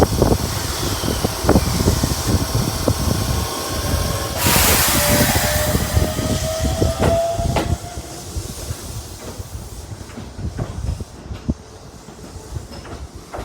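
Keisei 3700-series electric train running past, its wheels clacking over rail joints. About four seconds in, a loud hiss lasts about three seconds while a whine rises in pitch, then the sound drops away and the clacks grow fainter.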